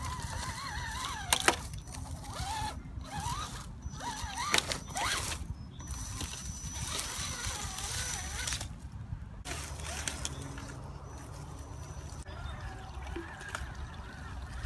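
Electric motor and gearbox of an Axial Wrangler RC crawler whining at crawling speed, with a few sharp cracks of twigs and leaves under its tyres, loudest about a second and a half in and again near five seconds. Birds call in the background.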